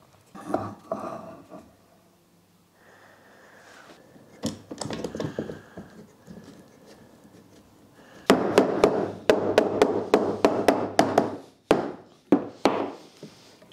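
Mallet tapping glued maple and walnut strips held in parallel jaw clamps, knocking them flush during the glue-up. After a few quieter knocks and some handling, a fast run of sharp taps comes at about four a second, then a few single taps near the end.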